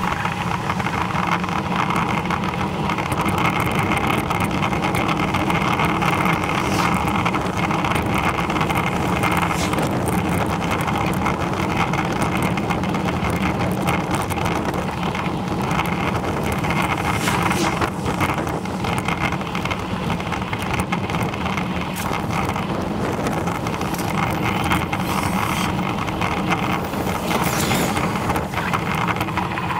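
Steady rolling noise of a bicycle on a tarmac road: tyre rumble mixed with wind on the microphone, with a few small clicks from bumps.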